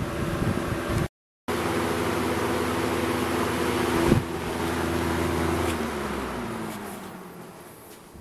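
1992 Lakewood Model 200 20-inch box fan running steadily with a hum and blade whoosh. A short click comes about four seconds in, then the fan winds down as it coasts to a stop, its hum falling in pitch and fading near the end.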